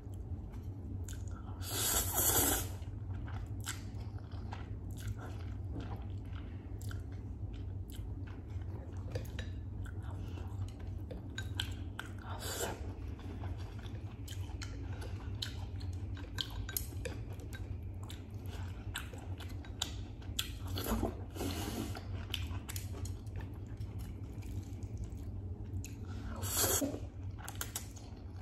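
Close-up eating sounds: wet chewing and small mouth clicks while eating instant noodles and vegetables, with four louder slurps of noodles spread through, over a steady low hum.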